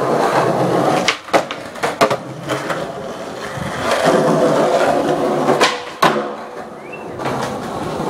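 Skateboard wheels rolling on smooth pavement, broken by several sharp clacks of the board's tail popping and the board landing and slapping down.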